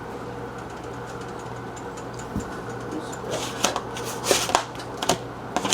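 Steady low hum, with a run of light clicks and scrapes starting about three seconds in.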